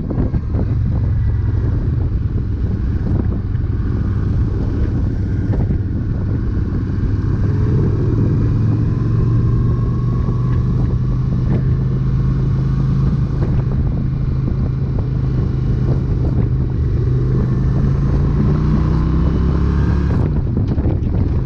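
An engine running steadily, with wind noise on the microphone; its pitch rises a little partway through.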